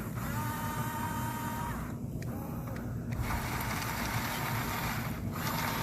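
Electric motors and plastic gearboxes of a Huina RC excavator whining in three bursts of one to two seconds as it works, with short pauses between, over a steady low hum.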